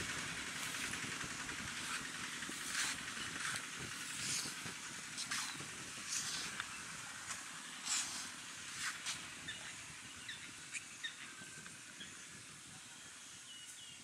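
Steady outdoor hiss with short, sharp sounds about once a second. It grows a little quieter toward the end, where a few brief chirps come in.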